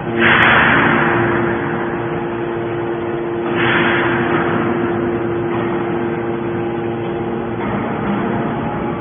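Hydraulic scrap metal baler running, with a steady pump hum. Two loud rushing surges of noise, at the start and about three and a half seconds in, each die away over a second or so.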